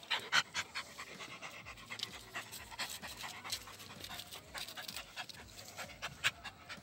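A dog panting close by, tired out from play, in quick irregular breaths with scattered scuffing clicks.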